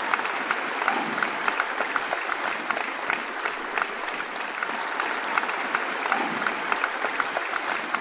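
Audience applauding steadily, a dense patter of many hands clapping, in response to the end of a talk.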